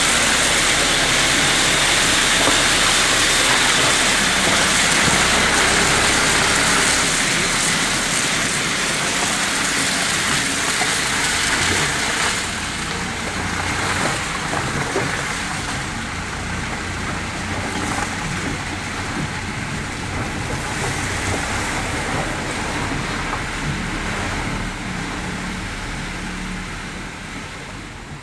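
Steady noise of a vehicle driving on a wet, flooded road, heard from inside the cab: engine rumble under a hiss of tyres on water. It is louder for about the first dozen seconds, then a little quieter.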